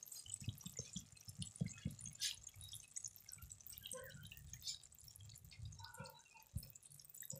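Thick jackfruit curry simmering in a kadai: faint, irregular pops and crackles of the bubbling gravy and oil, with a few soft low thumps.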